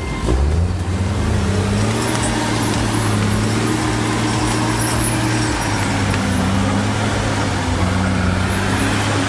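Engine of a heavy machine running steadily, its pitch rising once just after the start as it revs up.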